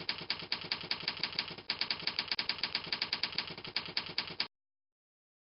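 Typewriter sound effect: fast, even typewriter key clicks, about eight a second, with a short gap a couple of seconds in. The clicking stops abruptly near the end, giving way to silence.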